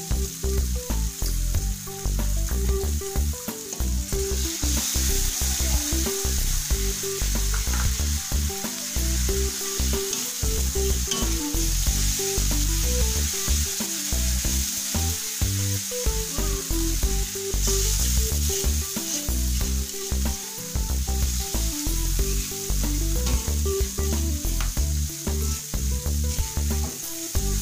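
Chili paste with tamarind water sizzling in an aluminium wok as a metal spatula stirs it, the sizzle growing stronger about five seconds in, over background music.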